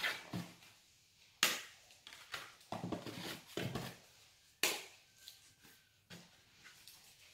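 Kitchen utensils and cookware knocking and clattering during food preparation, with two sharper knocks about a second and a half and four and a half seconds in and smaller clatters between them.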